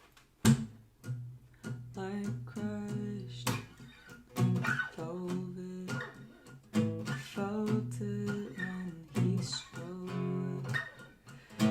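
Instrumental intro on a solo acoustic stringed instrument, chords strummed and picked in a steady rhythm, the first sharp strum about half a second in.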